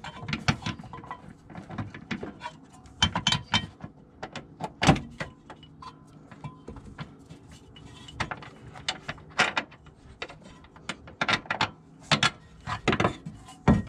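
Irregular metallic knocks, clicks and clanks of hand tools and steel suspension hardware as the worn-out rear upper control arm and its bolt are worked free, some single and some in quick clusters.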